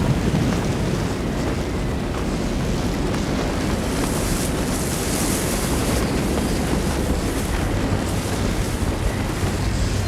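Avalanche powder blast hitting: a loud, steady rush of wind and blown snow buffeting the microphone, its hiss brightest about halfway through.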